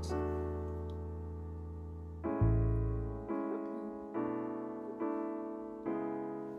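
Background piano music: slow chords, each struck and left to fade, one held for the first two seconds, then a new chord about once a second.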